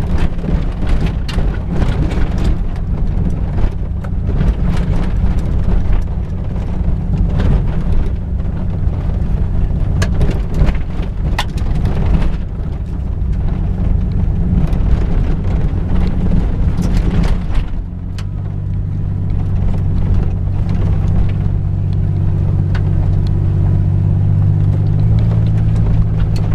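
1999 Isuzu Amigo's engine running under way off road, with frequent knocks and rattles over the rough track. About two-thirds of the way through the clatter dies down and the engine note turns smooth and steady, then rises in pitch near the end.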